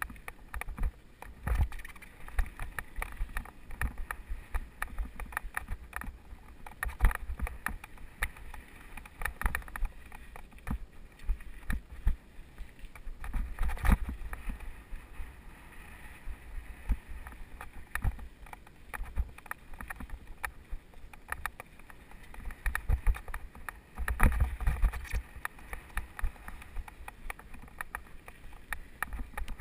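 Mountain bike rattling and jolting down a rough dirt trail, heard through a helmet-mounted camera: a steady clatter of knocks and bumps, with low wind buffeting on the microphone that swells in places.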